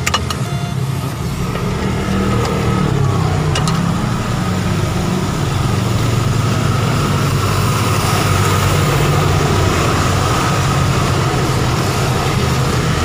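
Steady low mechanical drone of a running machine, getting a little louder about two seconds in, with a few light clicks near the start.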